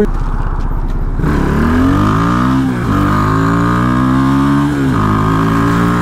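Geon Scrambler 250 motorcycle engine accelerating through the gears: its pitch climbs from about a second in, drops at a gear change near the middle, climbs again, and drops and levels off after another shift near the end.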